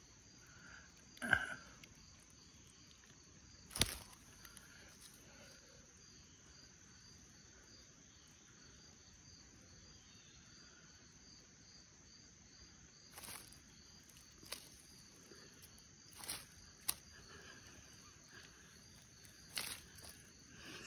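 Faint outdoor background with a steady, high, evenly pulsing trill, broken by a few brief knocks or rustles; the two loudest come in the first few seconds.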